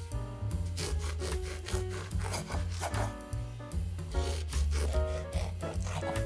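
A serrated bread knife sawing through the crust of a loaf on a wooden cutting board, with scratchy cutting strokes over background music.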